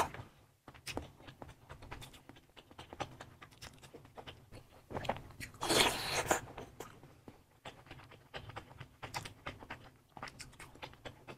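Close-miked chewing and biting of cheese-covered sausages in spicy sauce: soft wet mouth clicks and smacks throughout, with a louder stretch about five to six seconds in.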